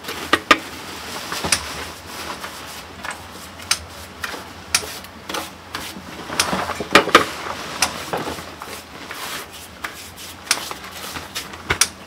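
Paintbrush strokes rubbing over a rough cement wall, mixed with scattered sharp taps and clicks.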